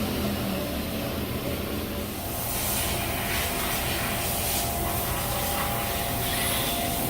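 Haas VF-9/40 CNC vertical mill with its spindle running at about 8,000 RPM, a steady hum with a faint whine. About two seconds in, a high hiss that swells and fades several times joins it.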